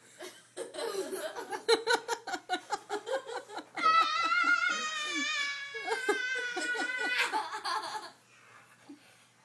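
Girls laughing hard in quick bursts, then a long high-pitched squeal of laughter beginning about four seconds in and lasting about three seconds, before the laughter dies away near the end.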